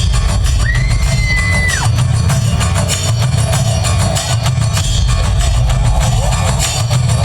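Devotional Shiva chant music with a steady, heavy low drum beat and a held high note that slides down and stops about two seconds in.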